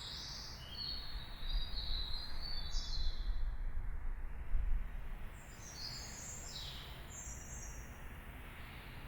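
Birds chirping in short runs of high calls, once at the start and again about two-thirds of the way through, over a steady low outdoor rumble.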